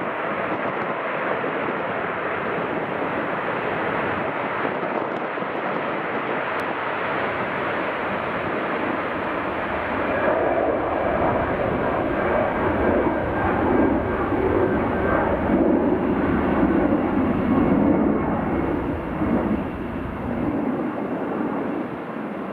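Boeing 787-9 airliner's jet engines running with a steady, even noise at close range. About ten seconds in the engine noise grows louder and deeper as thrust builds for the takeoff roll.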